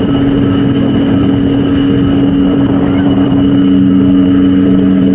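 Passenger ferry's engines droning steadily, heard from on board.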